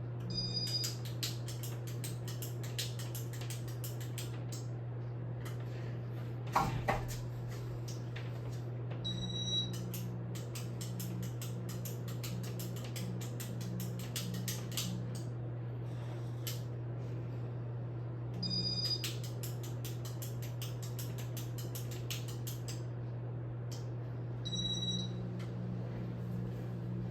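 Casablanca Spirit of Saturn ceiling fan running, with a steady low motor hum and a long run of quick repeated clicking. A single louder knock about six seconds in.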